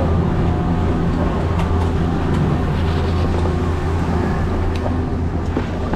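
Chairlift terminal machinery humming steadily as the chair passes through the unloading station, with a snowboard scraping over the snow of the unload ramp; the hum eases slightly near the end.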